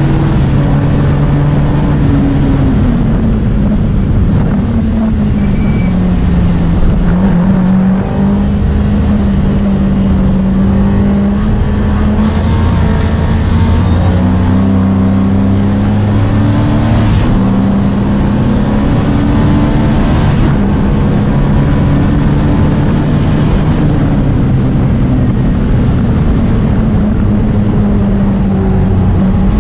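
Opel Kadett GT/E historic race car's engine under hard racing, heard from inside the stripped cockpit. The revs climb and drop over and over with the gear changes.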